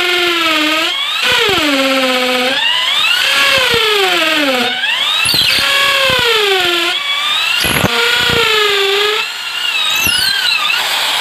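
INGCO ID6808 13 mm corded impact drill in hammer mode, boring a 10 mm hole in a concrete floor with a masonry bit. The motor's whine sags in pitch as the bit is pressed in and bites, then rises again each time the pressure eases, about five times over.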